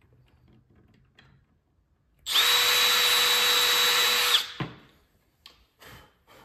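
Cordless drill run at a steady full speed for about two seconds, drilling a screw hole into the wooden side of a drawer. It stops abruptly with a brief drop in pitch, and a single knock follows.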